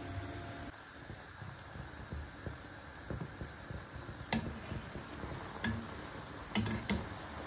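Syrup boiling in a pot with rasmalai paneer balls, bubbling steadily. In the second half a steel ladle is stirred through it and clinks sharply against the pot four times.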